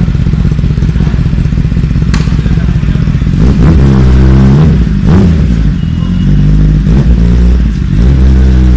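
Kawasaki ZX-10R inline-four sportbike engine idling steadily, then revved in several rising and falling blips from about halfway through, staying at higher revs near the end.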